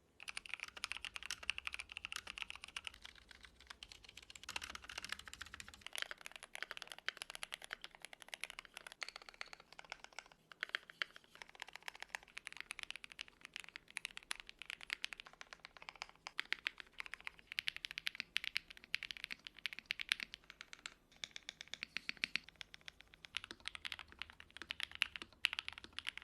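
Rapid typing on a computer keyboard: a dense run of quick key clicks with a few brief pauses.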